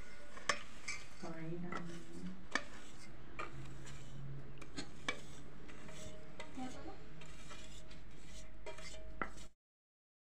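Hand stirring a dry, crumbly gujiya filling of grated dry coconut and chopped nuts in a steel bowl: a soft steady rustle with scattered light clinks and taps against the metal. The sound drops out briefly near the end.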